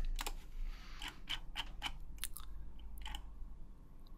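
Irregular light clicking from a computer mouse and keyboard, about ten sharp clicks spread unevenly over the few seconds.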